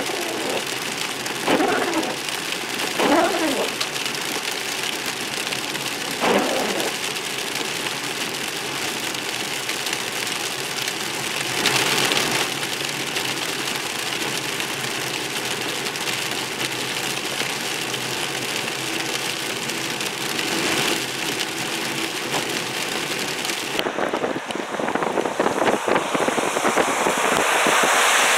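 Freezing rain and sleet hitting a car's windshield and roof, heard from inside the moving car over road noise, with a few louder swishes in the first half. Near the end the sound changes abruptly to a steady rushing noise.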